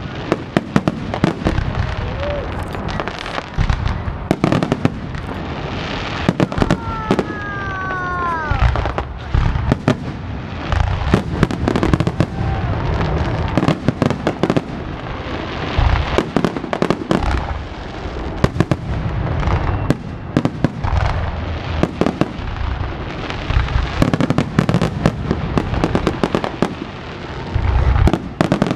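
Fireworks finale: a dense barrage of aerial shell bursts, one bang after another over continuous crackling. A falling whistle sounds about seven seconds in.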